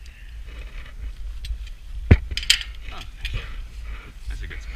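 Metal climbing hardware clinking and clacking against a steel lattice tower, with one sharp metallic clack about two seconds in, over wind buffeting the microphone.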